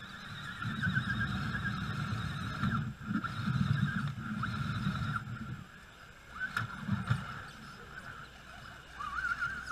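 RC rock crawler's brushless electric motor whining, its pitch wavering up and down with the throttle, over a low rumble that comes and goes as the truck crawls.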